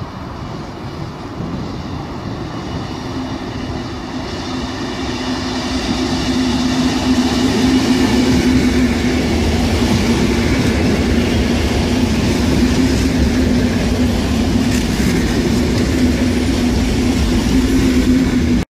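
Graffiti-covered red electric multiple-unit train approaching along the platform track and running past, getting louder over the first several seconds, then holding a steady low hum over the rumble of its wheels on the rails. The sound cuts off suddenly near the end.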